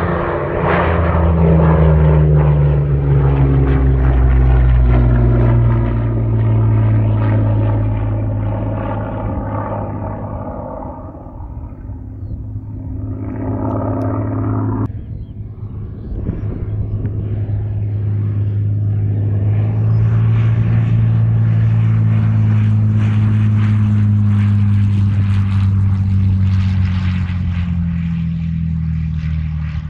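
Propeller aircraft engine droning as the plane flies past, its note falling in pitch as it goes by. Halfway through it cuts off abruptly, and another loud, steady propeller drone takes over.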